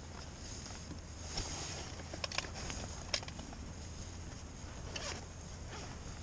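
Rummaging in a backpack for a water bottle: a few scattered clicks and knocks over a steady low hum.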